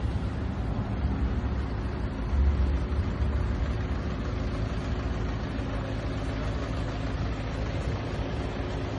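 A vehicle engine running steadily at idle, a low rumble that swells briefly about two and a half seconds in.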